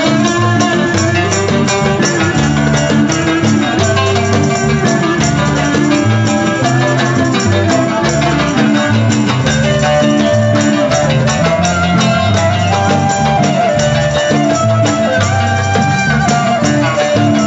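Live traditional Armenian folk music from a small band: clarinet and oud with guitar, and a frame drum keeping a steady beat.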